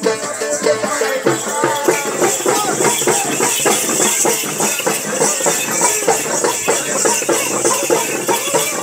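Folk festival music: hand drums beaten in a steady rhythm of a few strokes a second, with jingling, rattling percussion over it, amid crowd voices.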